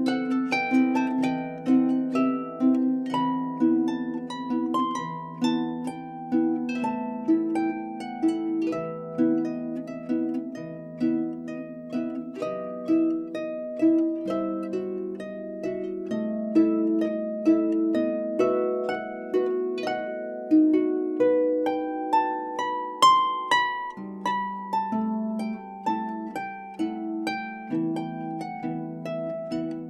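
Solo lever harp played with both hands: a steady, unbroken stream of plucked notes, a moving melody over lower ringing bass notes.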